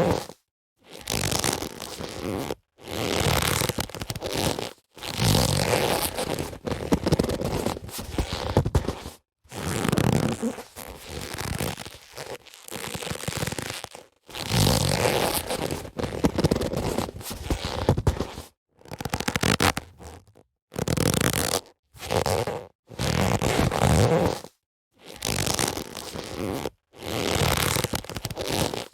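Leather boxing gloves rubbing and creaking as they are handled, in a string of short takes about one to two seconds each, with a short dead silence between them.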